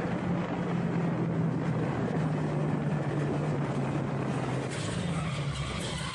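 Motorcycle engine running at a steady speed while riding, with wind and road noise over it.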